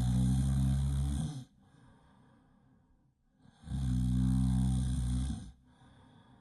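Really loud snoring: two long snores, one at the start and another about three and a half seconds in, each lasting about a second and a half, with quiet breathing out between them.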